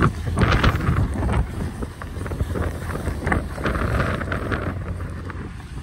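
Footsteps of ski boots on packed, icy snow, a short burst at each step, with wind buffeting the microphone. The steps fade near the end.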